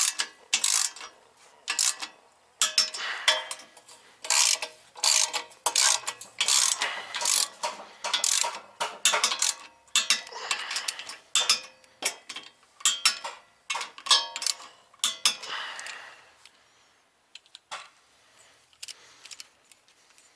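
Hand ratchet with a socket and extension clicking in quick back-and-forth strokes, about two a second, as it runs nuts down onto the studs. The strokes stop about 16 seconds in, and a few light clicks follow.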